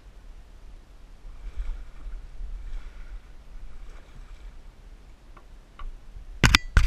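Canoe gliding with faint water noise and a low rumble. Near the end its bow knocks and scrapes onto the rocky shore of the landing in a loud clatter.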